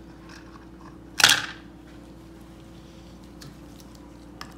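A single sharp metallic snap about a second in, with a short ring, as the reel and coil spring of a Mobylette pull-cord recoil starter are worked into the housing and lock into place. A couple of faint small clicks follow near the end.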